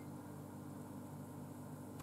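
Quiet room tone: a faint, steady low hum with no distinct sounds.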